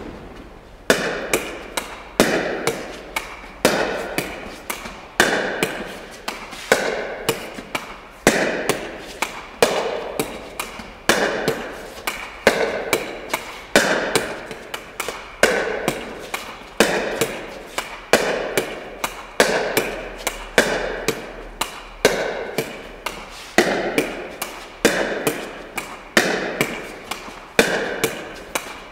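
Six Zero pickleball paddle hitting a plastic pickleball in a steady wall-drill rally: a sharp pop about every second and a half, each with a fainter knock close behind, echoing in a gymnasium.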